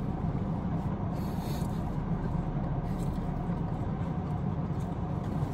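Steady low hum inside a car's cabin with the car running, and a brief faint rustle about a second in.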